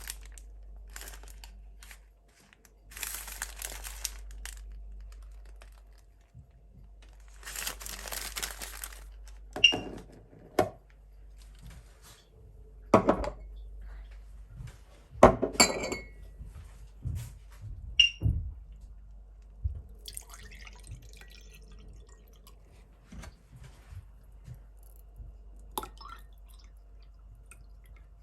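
Household handling sounds: a wrapper crinkling in a few short bursts, then several sharp knocks and clinks of things being handled and set down.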